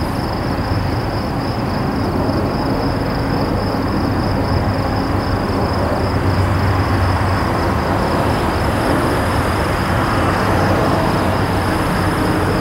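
Steady, distant low rumble of vehicles, with a continuous high-pitched whine above it.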